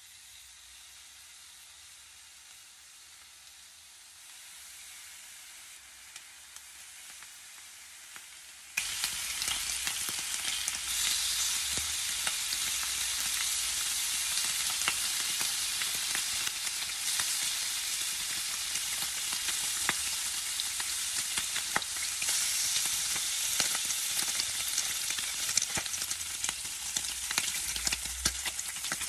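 Bacon frying in a non-stick pan. A soft hiss at first jumps suddenly, about nine seconds in, to loud steady sizzling full of small crackles and pops.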